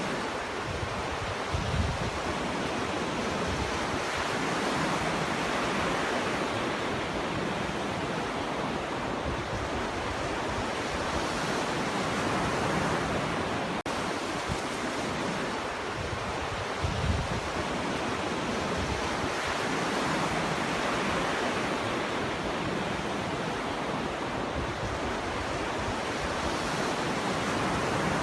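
Sea waves breaking and washing ashore: a steady rushing surf that swells and eases every several seconds, with a low thump of a breaker about two seconds in and again about seventeen seconds in.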